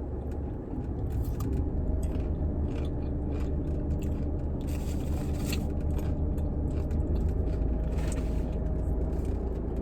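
A parked car's engine and air conditioning running with a steady low hum. Over it come scattered crunches and rustles of food and wrappers being handled and eaten.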